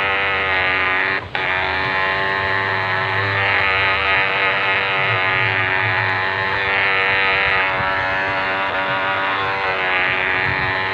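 Radio-controlled model boat's motor running steadily at speed, with a brief cut in power about a second in, over the wash of water off its hull.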